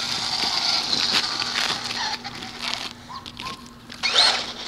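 Traxxas electric RC car's motor whining as it drives on asphalt, wavering for the first couple of seconds. About four seconds in it gives a sharp rising whine as the car accelerates.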